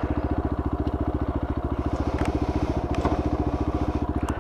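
Motorcycle engine idling with a fast, even beat, then switched off right at the end.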